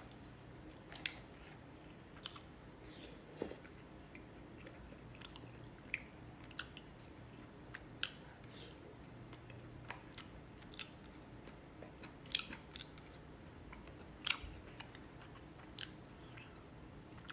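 A person eating with chopsticks from a plastic tub: quiet chewing and biting, with short faint clicks and smacks at irregular intervals, a dozen or so in all.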